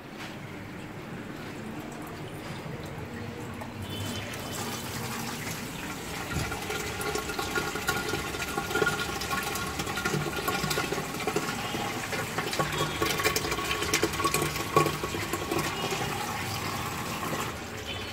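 Water running steadily, a continuous rush that grows louder about four seconds in.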